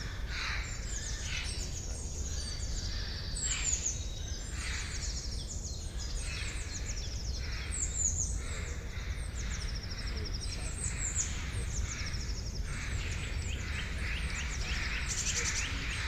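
Forest birds singing together, a chorus of quick repeated chirps and rapid high trills overlapping throughout, over a steady low rumble.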